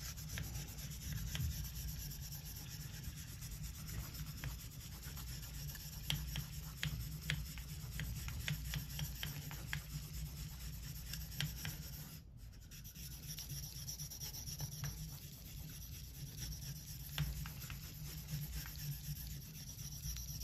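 Stainless Opinel blade rubbed flat back and forth on a wet diamond ceramic whetstone, a steady quiet scratching with small ticks of steel on stone, easing off briefly about twelve seconds in. The blade's face is being abraded flat on the stone to create a false hamon pattern.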